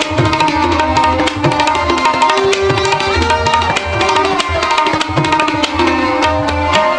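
Music without singing: tabla playing a steady rhythm, some of its low bass strokes bending in pitch, under a melodic instrument playing held notes.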